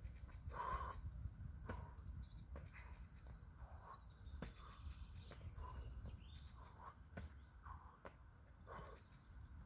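Birds calling outdoors, short calls about once a second, over a low wind rumble with scattered faint clicks.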